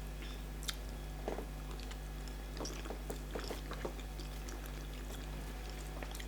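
Faint eating sounds: scattered soft wet clicks and smacks of chewing and handling starch fufu with soup, over a steady low electrical hum.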